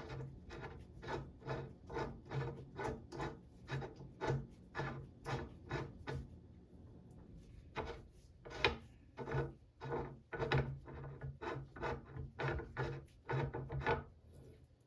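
Allen wrench turning a set screw into an Olympic barbell sleeve: a run of short scraping strokes, about two to three a second, with a pause about halfway through.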